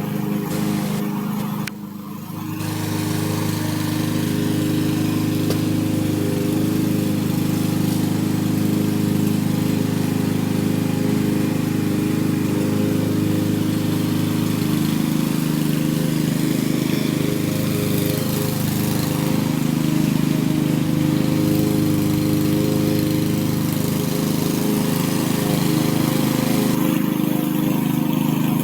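Power lawn mower running steadily while cutting grass, with a brief dip in level about two seconds in.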